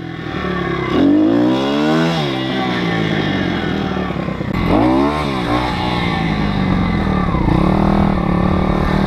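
A pit bike's YX160 single-cylinder four-stroke engine being ridden under load. The revs rise and drop back twice, at about one second and about five seconds in, then it runs steadily. Its valve clearances have just been reset, and it runs and pulls well.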